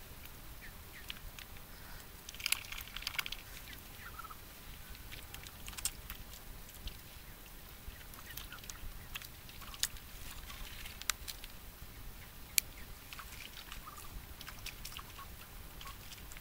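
Mallard ducks foraging in shallow water and mud: scattered sharp clicks and snaps from their dabbling bills, with a short burst of soft duck calls about two and a half seconds in.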